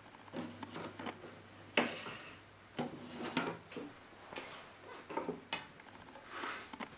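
Handling noise on a portable wind-up gramophone after the record has stopped: irregular clicks, knocks and short scrapes of wood and metal parts, the sharpest knock about two seconds in.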